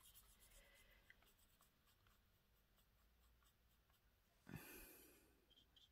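Near silence: faint scratching of a fine paintbrush working gold watercolour in the pan and onto card, with one brief soft rush about three-quarters of the way through.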